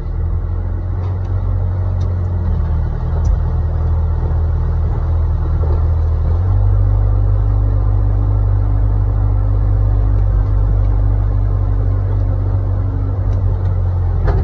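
Excavator's diesel engine running steadily with a deep rumble; about six and a half seconds in it gets heavier and a faint steady whine joins it.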